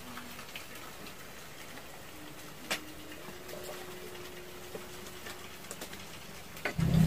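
Firewood sticks clicking and snapping as a small wood fire is laid and lit under an iron trivet, with one sharp crack about two and a half seconds in. Just before the end, a much louder low steady hum starts.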